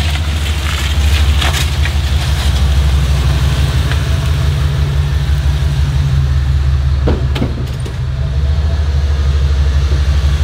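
The newly replaced engine of a GMC OBS pickup running steadily close by. A couple of light clicks come about seven seconds in.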